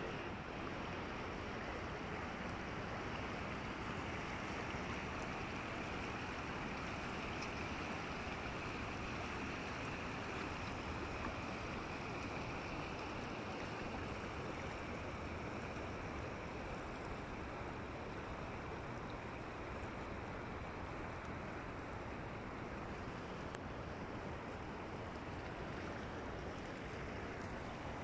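Steady rush of water flowing past rocks along the shore, an even hiss without a break.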